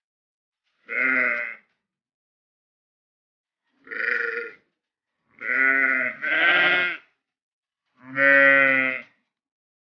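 Sheep bleating: five separate calls, two of them back to back about halfway through, the last one the loudest and longest.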